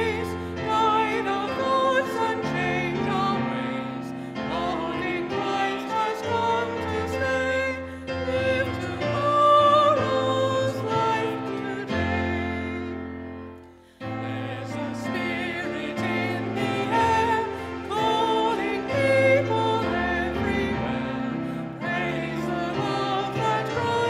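A hymn sung with instrumental accompaniment. About thirteen seconds in, the music fades into a brief pause, then the next verse begins.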